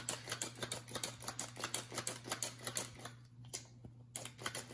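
Red hand-operated metal flour sifter being worked over a tray, its agitator clicking rapidly and evenly as it forces flour through the mesh, airing the flour for pastry dough. The clicking stops for about a second near three seconds in, then starts again.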